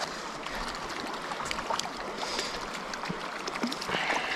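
Small stream running over a shallow riffle, with light splashing as a hooked trout is drawn in near the surface.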